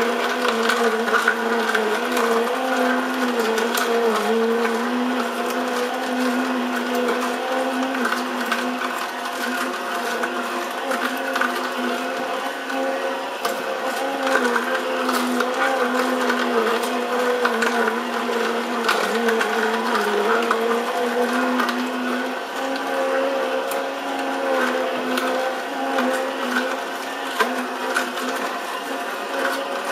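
Sharp EJCP10BJR slow juicer's motor running with a steady hum that wavers slightly in pitch, while the auger crushes carrot with a continuous fine crackling and snapping.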